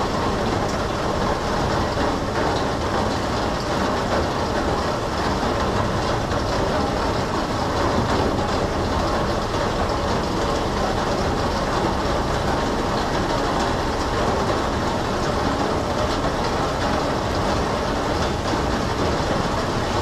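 Heavy rain pouring steadily, a dense even hiss of downpour with no thunder.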